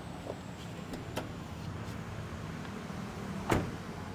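Steady low hum of a 2018 Honda City idling, with a few light clicks. The sharpest click, about three and a half seconds in, is its rear door latch being opened.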